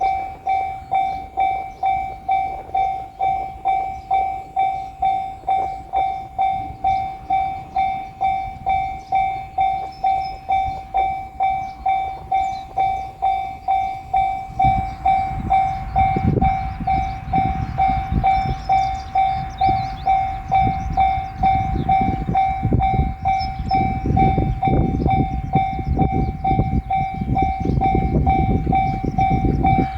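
Japanese railway level-crossing warning bell ringing, a steady electronic ding at about two strokes a second. About halfway through a JR Shikoku 7200 series electric train arrives and passes over the crossing with a rumble and clatter of wheels on the rails, the bell ringing on over it.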